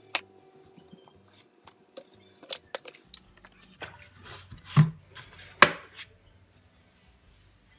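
Kitchen items being handled: a run of sharp knocks and clatters, the two loudest a little under a second apart near the middle.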